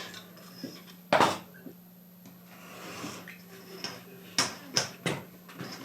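Workbench handling sounds while leather is being cut with a knife: one sharp knock about a second in, a soft scraping stretch in the middle, then three quick sharp clicks near the end, over a faint steady hum.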